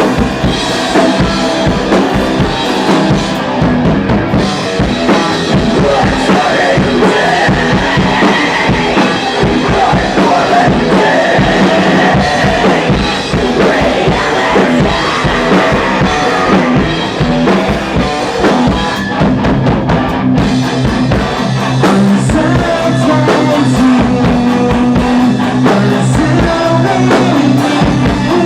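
Heavy metal band playing a song live in rehearsal: drum kit with bass drum and snare hits under sustained guitar notes, loud and continuous.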